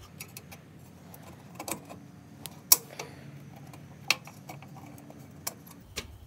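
Irregular light clicks and small metallic taps as an LED headlight unit is handled and seated in a VW Beetle's metal headlight ring. The sharpest click comes a little under three seconds in, another about a second later.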